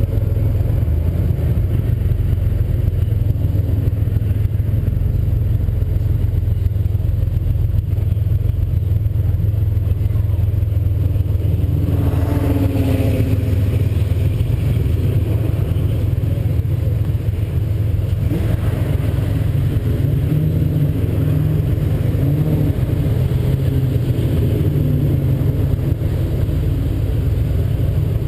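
The engine of a turbocharged 2007 Mustang's 4.0-litre V6 idling with a steady low rumble, heard close up from the hood. Other cars drive past in front, one passing loudly about twelve seconds in and another about eighteen seconds in.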